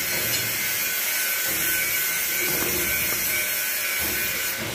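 TIG (argon) welding arc burning with a steady hiss and a thin, constant high whine.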